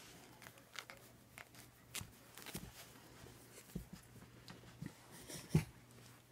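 Australian Shepherd puppy wrestling with a toy on carpet: soft scuffling and scattered light clicks and thumps, with a louder knock near the end.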